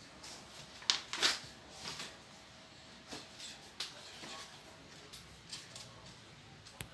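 Paper pages of a booklet being turned and handled: soft, irregular rustles and flaps, the loudest a little after a second in. A sharp click near the end.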